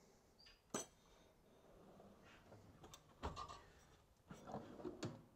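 Faint clicks and knocks of small tools being set down in a stainless steel tool chest drawer, then the drawer sliding shut and the next drawer's handle being taken, a few separate knocks near the end.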